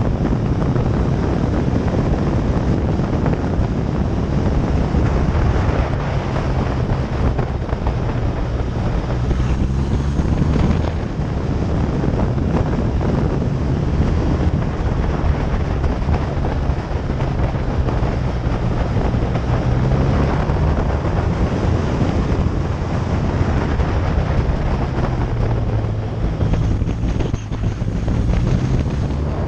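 Motorcycle engine running under way, its note rising and falling a few times with the throttle, almost buried under heavy wind buffeting on the microphone.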